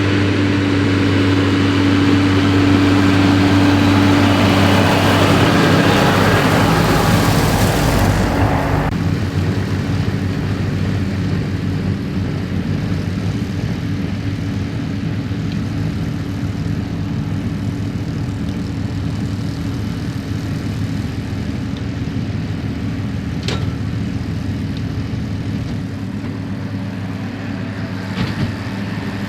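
New Holland TM155 tractor engine running steadily while pulling a Claas Variant 385 round baler. A loud rushing noise over the engine for the first nine seconds cuts off suddenly, leaving the engine's steady note.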